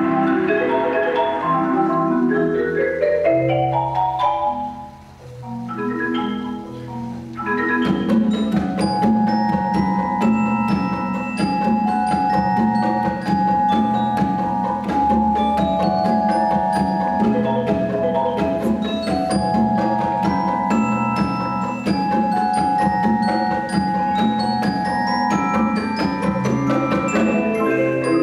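Marimbas played with mallets in an ensemble: rising runs of notes, a brief quieter moment about five seconds in, then from about eight seconds a dense texture of rapidly repeated strokes sustaining chords under a melody.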